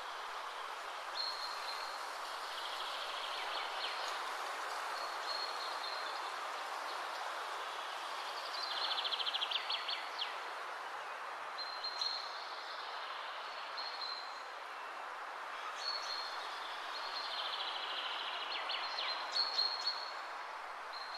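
Steady background noise with birds chirping at intervals: short high whistles and a couple of quick twittering trills.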